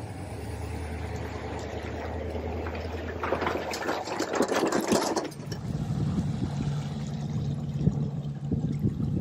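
A motor running with a steady low hum. About three seconds in, a loud rushing noise rises over it, and after about five seconds a somewhat higher, steady motor hum with small knocks takes over.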